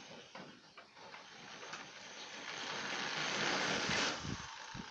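Cordless drill boring a hole through a thin sheet-metal rain gutter: a grinding hiss that builds over about three seconds and cuts off suddenly about four seconds in.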